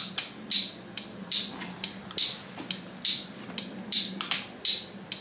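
Honda Ruckus scooter's turn-signal flasher ticking on and off in a steady rhythm, a little more than once a second, over a faint low hum.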